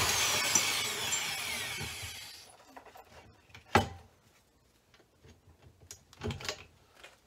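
Corded drill driving a hole saw in a pipe notcher, spinning down after cutting through a roll-cage pipe: a whine that falls in pitch and fades over about two seconds. A sharp metal clank follows about four seconds in, then a couple of lighter knocks near the end as the notcher is handled.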